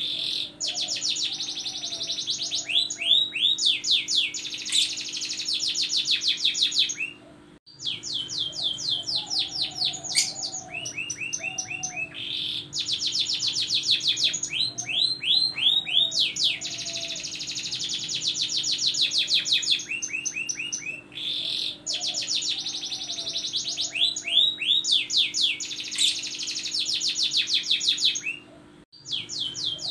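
Domestic canary singing a long, continuous song of fast trills made of rapidly repeated notes, broken by a brief pause about a quarter of the way in and another near the end.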